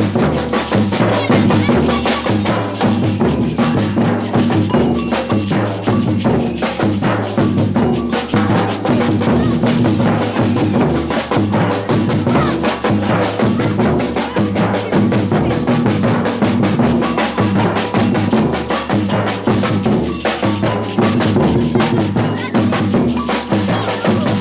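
Batucada percussion ensemble playing a steady samba rhythm: deep surdo bass drums repeat a pattern beneath dense, rapid drum and hand-percussion strokes.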